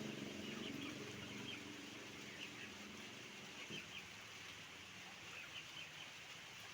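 A flock of chickens making short, scattered clucks and calls, faint throughout. A motor vehicle's engine hum fades away over the first couple of seconds.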